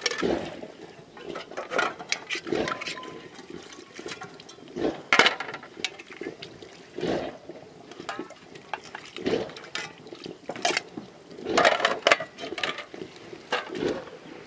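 Water splashing as aluminium bowls and plates are rinsed by hand, with irregular short clinks and knocks of the metal dishes.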